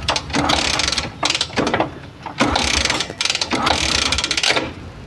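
Ratchet wrench clicking in repeated short strokes while loosening the spark plug of a Honda SP 125 motorcycle, several bursts of rapid clicks with brief pauses between them.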